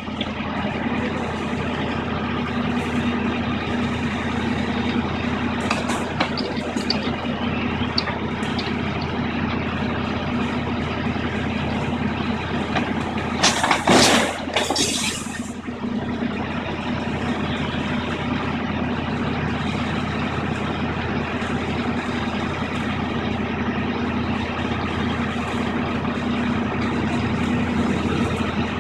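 Demolition excavator's diesel engine running steadily as its long boom pulls apart a brick building, with scattered knocks of falling debris. About halfway through comes a loud rush of noise as a section of masonry comes down.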